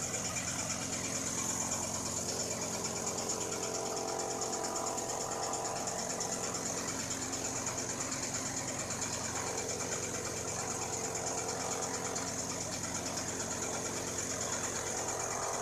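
Threshing machine running steadily, its blower driving chopped straw and dust out through the curved discharge spout: a constant mechanical drone with a high hiss of rushing air and chaff.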